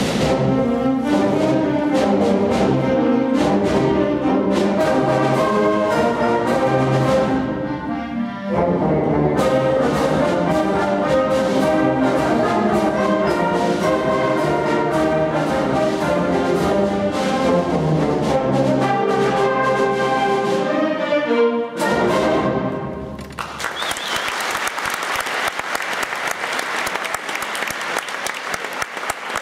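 A school concert band of woodwinds and brass plays, with a short break about eight seconds in, and ends the piece on a final chord a little past two-thirds of the way through. The audience applauds from then on.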